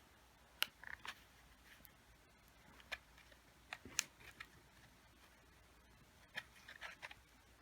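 Faint, scattered clicks and light handling noise from the paper pages and sewn-on embellishments of a handmade junk journal being handled.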